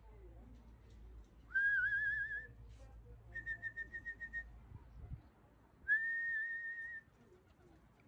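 A person whistling three times to call racing pigeons down to the loft. The first and last whistles rise and then hold with a warble, and a trilled whistle comes between them; each lasts about a second.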